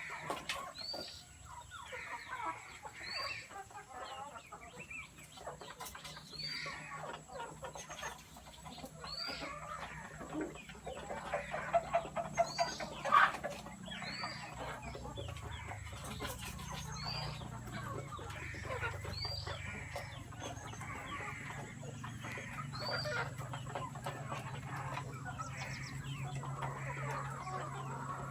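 Chickens clucking, with short high chirps repeating about once a second and one louder call near the middle. A low steady hum joins about halfway through.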